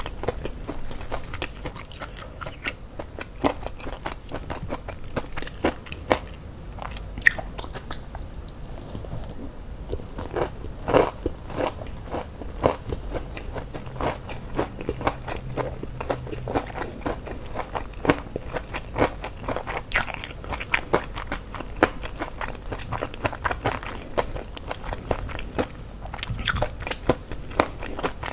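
A person eating ayam geprek, crispy fried chicken with rice, by hand: frequent crunching bites and chewing.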